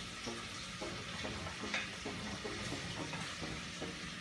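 Chicken frying in oil in a pot, with a steady sizzle and soft repeated taps, about three a second, as sliced chayote goes in.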